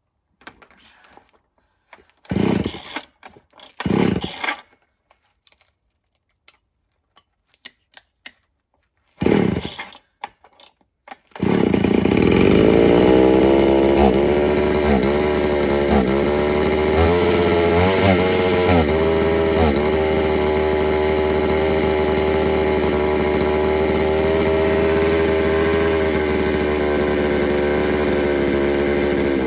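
Dayton 4Z251 (rebranded Poulan 3400) two-stroke chainsaw being pull-started: three short pulls on the recoil starter, then it catches about eleven seconds in and keeps running. Its speed wavers up and down for several seconds before settling to a steady run, which the owner takes for the sign of an air leak.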